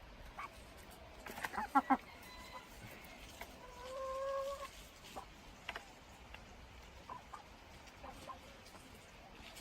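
Chicken clucking: a quick run of short clucks, then a single longer drawn-out call a couple of seconds later.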